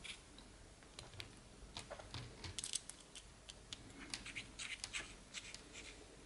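Faint, irregular clicks and scratching of a small screwdriver turning a small screw into a 3D-printed plastic canopy to fix a micro FPV camera, with the plastic parts handled in the fingers.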